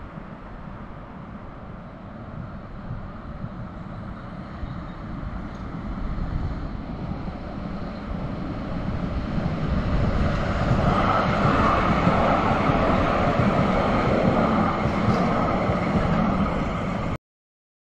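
Light-rail tram running past, a steady rumble that grows louder about six to ten seconds in, holds, then cuts off suddenly.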